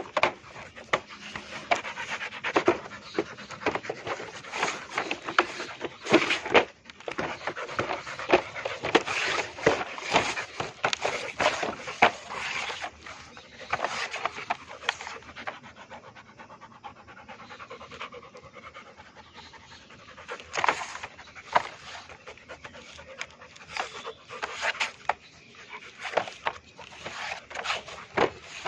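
Rottweiler panting hard and fast, close to the microphone, winded from rough play-fighting. The panting eases for a few seconds about halfway through, then picks up again.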